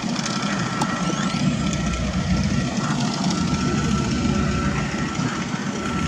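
Steady engine noise of heavy machinery running, with a thin, steady high whine through it.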